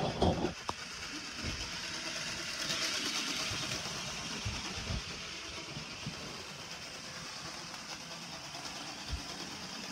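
Hornby model train set locomotive running around its track: a steady whirring rattle from the motor and wheels, a very noisy runner. A few clicks come in the first second, and it grows louder for a couple of seconds about three seconds in.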